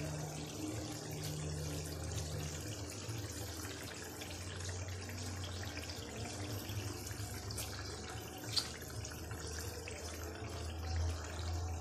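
Chicken curry simmering in oil and gravy in a wok, a soft steady bubbling and sizzling over a low hum, with one brief tick about eight and a half seconds in.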